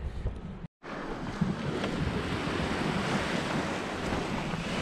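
Wind on the microphone and sea rushing past the hull of a sailboat under way: a steady, even rush that starts after a short cut to silence just under a second in.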